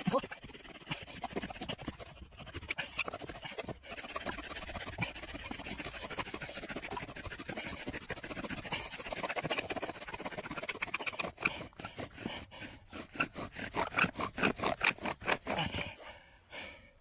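Bow drill for friction fire: a wooden spindle grinds in the notch of a wooden fireboard as the bow is sawed back and forth, in a fast, even scraping rhythm. About eleven seconds in, the strokes grow louder and more distinct, then they stop a second before the end. The friction is grinding out hot, charred wood dust for an ember.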